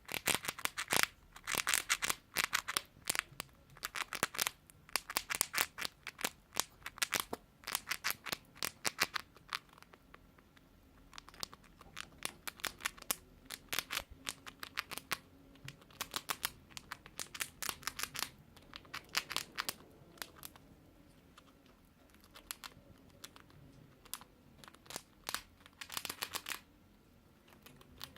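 Crisp crunching in rapid, irregular bursts with short pauses: food being chewed close to the microphone.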